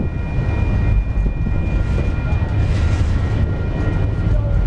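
Enclosed autorack freight cars rolling past at close range: a steady rumble of steel wheels on the rails.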